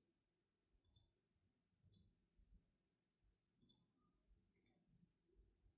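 Faint computer mouse clicks: four short press-and-release click pairs, about a second apart, over near silence.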